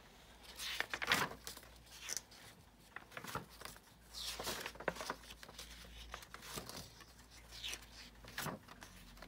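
Paper pages of a spiral-bound sketchbook being turned by hand: a series of papery swishes and rustles, one every second or two.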